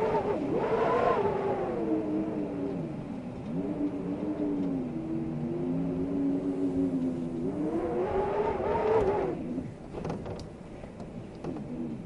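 Wind howling with a moaning pitch that slides up early, sinks lower and steadier through the middle, and swells up again around nine seconds before falling away. It then eases into a softer rushing gust with a few light clicks near the end.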